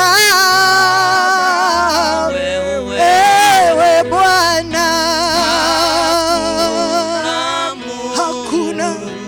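Gospel worship music: a sung melody with wavering vibrato over steady held bass notes.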